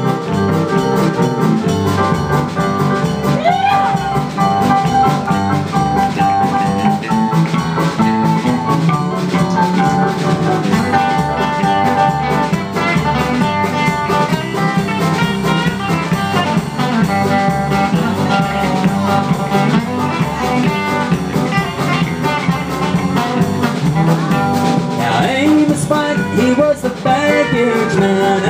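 Live country-rock band playing an instrumental break with electric guitars, electric bass and drum kit. The lead guitar plays sustained notes with a few string bends, about four seconds in and again near the end.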